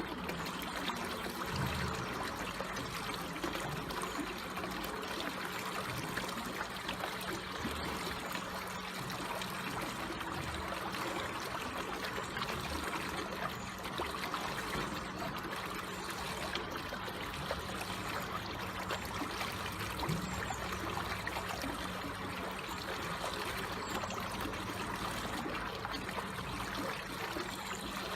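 Water flowing slowly and calmly, a steady trickling stream with small splashes and gurgles.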